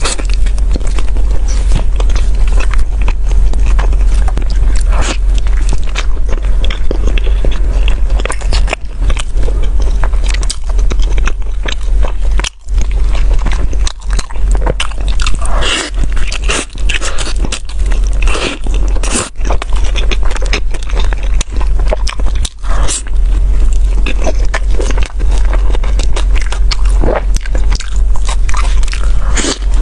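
Close-miked biting and chewing of a griddled flatbread wrap with a meat filling: wet, crackly mouth sounds with many small clicks, pausing briefly a few times, over a steady low hum.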